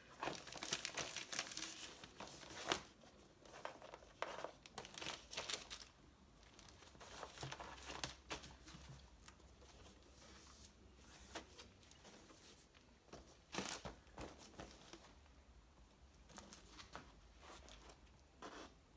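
Soft intermittent crinkling and rustling with light clicks, from new gasket-kit parts and their plastic wrapping being handled; busiest in the first few seconds, with another sharp crinkle about 14 seconds in.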